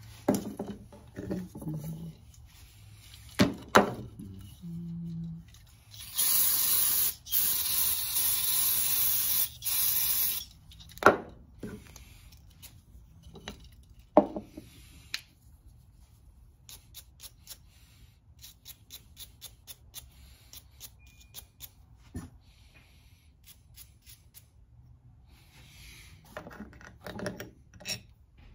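An aerosol spray can hissing in three bursts, the longest about two seconds, some six seconds in. Before and after, scattered clinks and knocks of metal parts handled over a metal drip pan.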